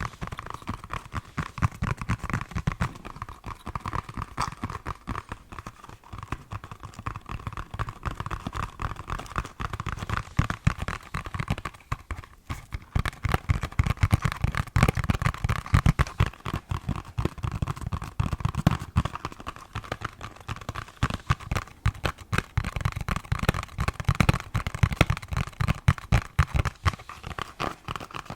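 Fingers tapping rapidly and unevenly on a hard object, many quick taps a second, with a brief pause about halfway through and somewhat louder tapping after it.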